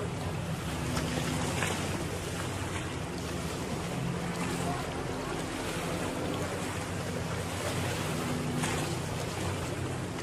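Motorboat engine running at a distance, a steady low drone, with wind noise on the microphone.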